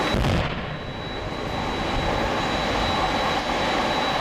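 A distant boom of USS Missouri's 16-inch guns about a quarter-second in, then a steady rush of wind and ship noise on the microphone under a thin, constant high whine.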